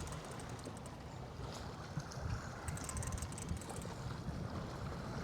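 Wind buffeting the microphone and waves washing against a small fishing boat, a steady low rumble with a few faint high clicks about a second and a half and three seconds in.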